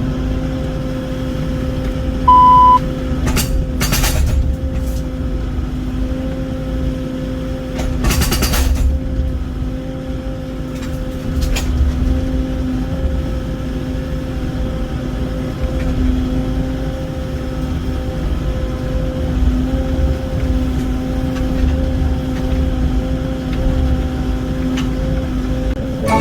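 Excavator diesel engine running steadily with an even drone. About two seconds in there is a short high beep, and brief noisy bursts come around four and eight seconds in.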